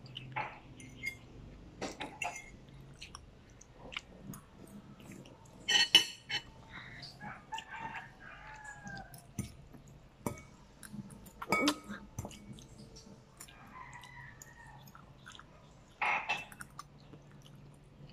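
A child eating black bean noodles with a fork: chewing and slurping, with small clicks of the fork on the plate and a few louder slurping bursts about six, eleven and sixteen seconds in.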